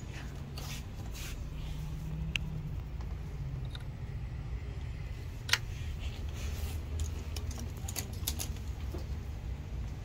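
Small clicks and scraping of plastic and metal parts being handled and fitted into an Xbox Series X chassis during reassembly, with one sharp click about five and a half seconds in, over a low steady hum.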